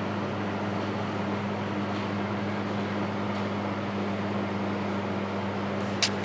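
A steady low hum under an even hiss of room background noise, with a single brief click about six seconds in.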